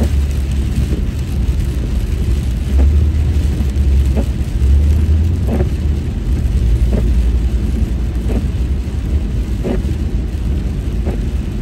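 Steady low road and tyre rumble heard inside a car driving on a wet freeway, with the windshield wipers sweeping across the glass about every second and a half, each stroke a short swish.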